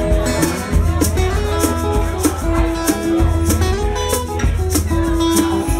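Live guitar and percussion playing an instrumental passage of a slow song: strummed and picked guitar chords over a steady beat of sharp percussion strokes, with no singing.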